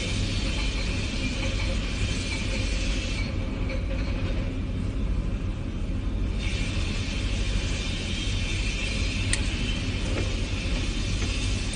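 Crane running: a steady low rumble with a higher hiss that stops about three seconds in and returns about three seconds later, and one short click near the end.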